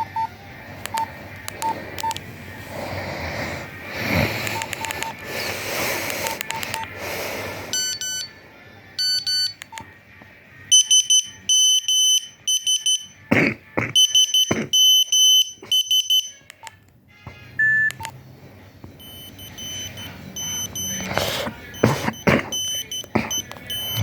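A Nokia 2100 mobile phone playing its ringtones and message alert tones: tunes of single high electronic beeps, some in fast runs. A few louder sharp knocks fall in between.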